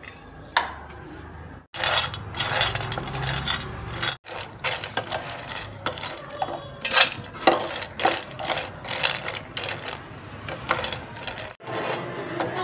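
Cashews and walnut halves being stirred with a wooden spatula in a dry steel pan as they roast: a run of rattling clicks and scrapes. The sound breaks off abruptly a few times.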